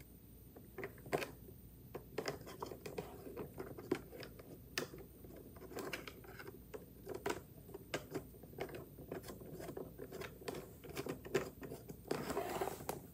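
Hands handling the parts of a wooden crane model kit, with irregular small clicks and taps of plastic spools, bolts and wood. A short rustle comes near the end.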